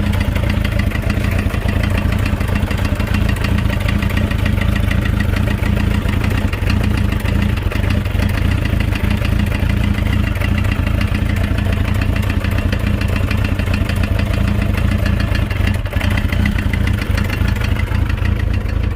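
Motorcycle engine idling steadily with a rapid, regular knocking running through it.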